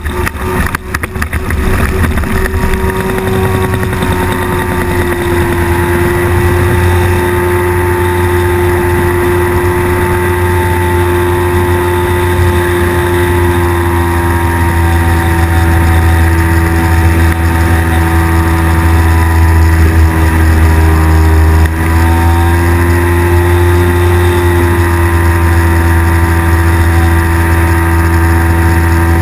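Engine and propeller of a flex-wing microlight trike running at takeoff power, a loud, steady drone as the trike leaves the ground and climbs. A few sharp knocks come in the first second or two, while it is still rolling on the grass.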